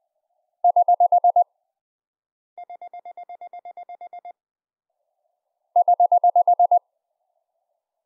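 Morse code (CW) keyer sidetone, picked up from the keyer's speaker by an EMF pickup coil and band-pass filtered: three runs of rapid, evenly spaced dits on one steady beeping pitch, about ten a second. The first and last runs are loud, and the middle, longer run is much quieter.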